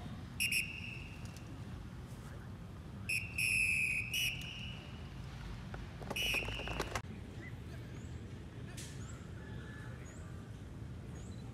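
A whistle blown in three blasts: a short one at the start, a longer one lasting about a second in the middle, and a shorter one about six seconds in. These are drill commands to a formation of police. Faint bird chirps follow in the second half.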